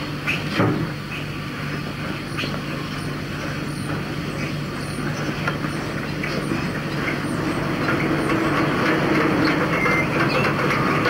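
Vintage motorcycle engine running steadily with a low, even beat and some mechanical clicking, getting a little louder in the second half.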